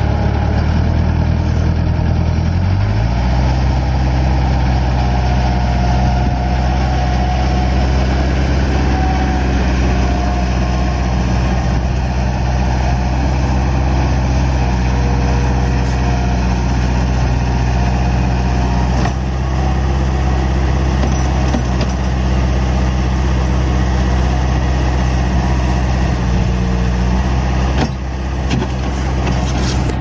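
Bobcat 753 skid steer's four-cylinder diesel engine running steadily. Its speed rises about three seconds in, holds, then falls back near the end.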